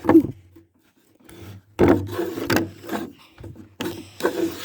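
Wooden barn door being dragged and shoved shut, wood scraping and rubbing in several separate pushes.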